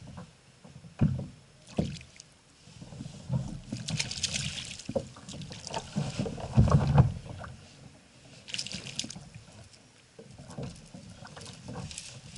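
An Atlantic bonito splashing at the surface beside a kayak as it is reeled in, in two hissing bursts about four and nine seconds in. Scattered knocks and bumps on the kayak hull go with it, the loudest a low thump about seven seconds in.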